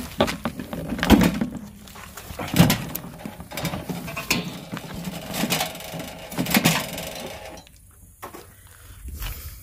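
Irregular knocks, clatter and rustling from gear and a handheld camera being moved about, with the loudest thumps about a second in, at two and a half seconds, and again near six and a half seconds, going quieter near the end.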